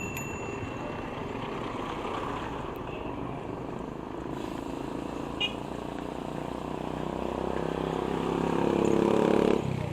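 Road traffic noise. A motor vehicle's engine grows louder over the last few seconds and stops abruptly near the end.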